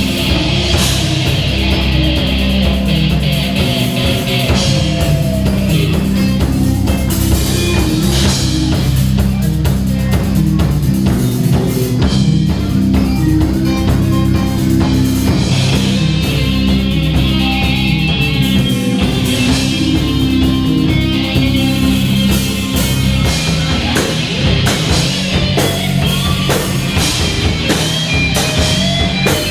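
Live rock band playing: electric guitar, bass and drum kit, with steady low bass notes and cymbals hit throughout.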